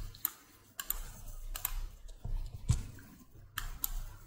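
Computer mouse clicking: a handful of short, sharp clicks spaced irregularly, some in quick pairs, over a low background hum.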